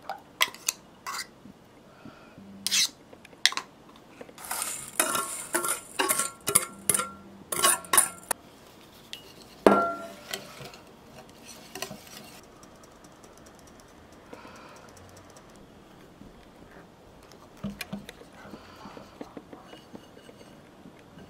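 Wire whisk clinking and scraping against a glass mixing bowl as eggs and sugar are beaten, with a sharp knock just before ten seconds. The whisking is then softer and quieter as flour is worked in.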